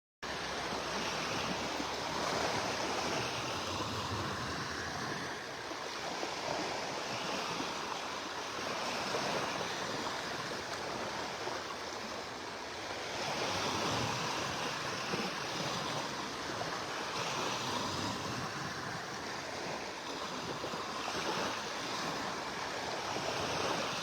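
Small Gulf of Mexico surf washing onto the beach with the incoming tide, swelling and easing every few seconds.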